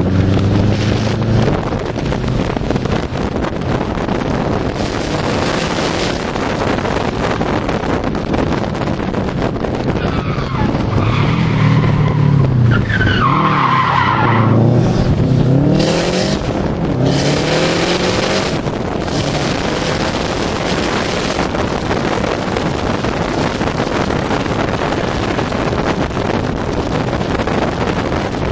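Wind rushing past an open car window over steady engine and road noise as the car is driven fast on a winding course. About ten to fifteen seconds in, the engine revs rise and fall through a corner and the tyres squeal briefly.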